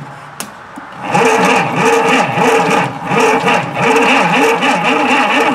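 Electric starter motor cranking a small engine through jumper cables. After a couple of clicks as the cables touch, it starts turning the engine over about a second in, with a steady whine whose pitch rises and falls about twice a second with each compression stroke. The engine never fires, which the owner puts down to no spark.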